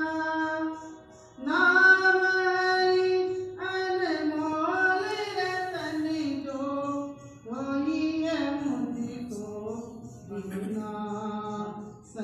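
A woman singing a Hindi devotional bhajan in long held notes that slide between pitches, phrase by phrase with short breaks between them.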